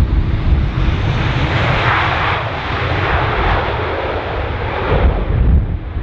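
Airbus A320 jet engines running as the airliner rolls along the wet runway, swelling to a peak about two seconds in. Gusty wind rumbles on the microphone underneath.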